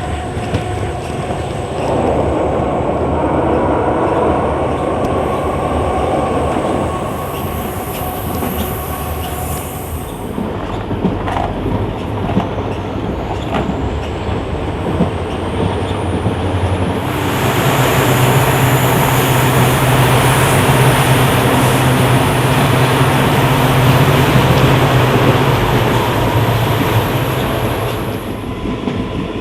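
Passenger train running along the track, wheels clattering over the rails. It gets louder for about ten seconds in the second half, with a faint high-pitched wheel squeal over a low hum.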